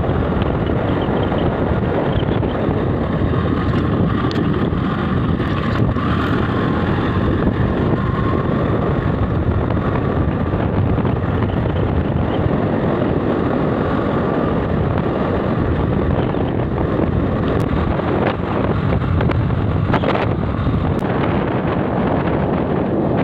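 Steady wind buffeting on the microphone mixed with the running noise of a Honda motorcycle being ridden along a road at speed.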